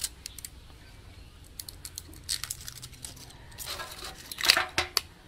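Clear plastic blister pack of a fire-starter fuel tablet crinkling and clicking in the hands as it is opened, with a louder cluster of clicks about four and a half seconds in.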